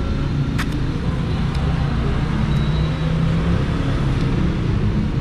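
Steady low rumble of road traffic with an engine's hum in it, and a single click about half a second in.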